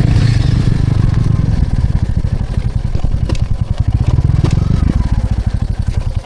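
Motorcycle engine running with a fast, even low pulse.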